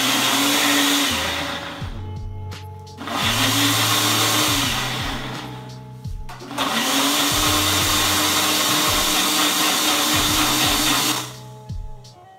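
Ninja personal blender running in three bursts, the last the longest, its motor whine rising as each burst starts and dropping as it stops, blending pepper and onion.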